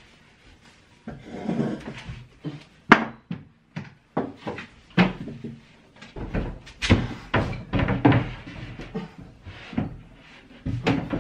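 Wooden knocks and bumps of a white kitchen wall cabinet being lifted and fitted onto its wall mounting: irregular sharp knocks, a loud one about three seconds in and a quick run of them in the second half.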